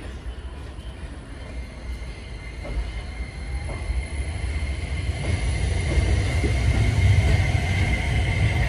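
JR East FV-E991 'HYBARI' hydrogen fuel-cell hybrid train pulling out and gathering speed past the platform: a low rumble of wheels on rail growing steadily louder. From about halfway, a steady high whine from its electric drive rises.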